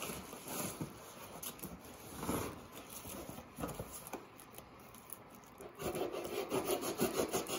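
Cardboard box and packing tape being scraped and worked at by hand while being pried open. Near the end come a run of quick rasping strokes, like something sawing at the tape.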